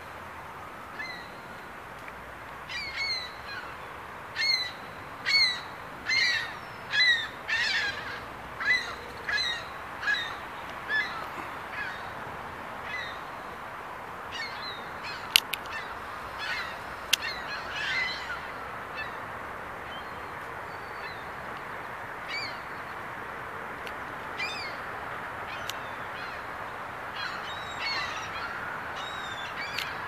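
Birds calling: a run of loud, harsh calls about once a second for several seconds, then scattered calls over a steady background hiss. Two sharp clicks come about halfway through, and a siren starts to rise near the end.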